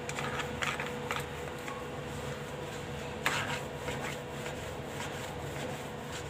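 Faint soft rubbing of palms rolling stiff besan dough on an oiled chopping board, over a steady low hum, with a few light taps and one sharper tap about three seconds in.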